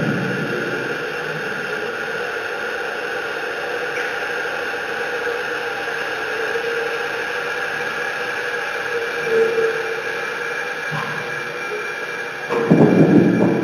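Experimental noise music: a steady, dense hissing drone with a few faint held tones running through it, swelling louder and rougher about a second before the end.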